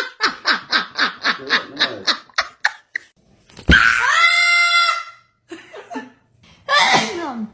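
A voice laughing in a rapid run of short bursts, about five a second, then a loud, long, high-pitched cry, and a shorter cry near the end.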